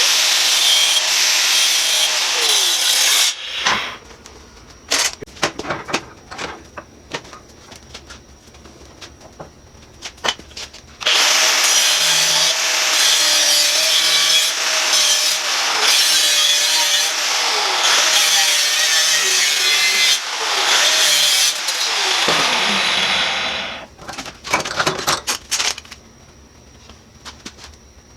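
Handheld power tool cutting the steel of an ammo can in two runs: one for about three seconds at the start, and a longer one from about eleven seconds in. Its motor winds down with a falling pitch after each run, and scattered clicks and knocks come between and after the cuts.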